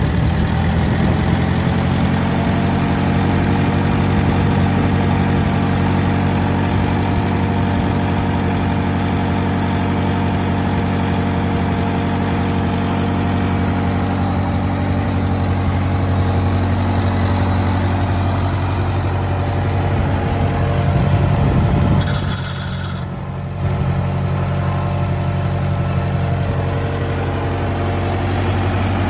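Wisconsin W4-1770 four-cylinder air-cooled gasoline engine on a concrete saw running steadily just after starting, its note settling in the first second or two. About 22 seconds in there is a brief burst of hiss and the engine sound dips for a moment before it steadies again.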